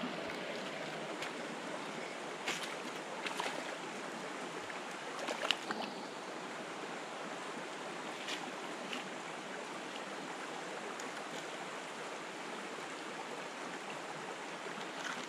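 Mountain stream rushing steadily, with a few light clicks and knocks in roughly the first nine seconds.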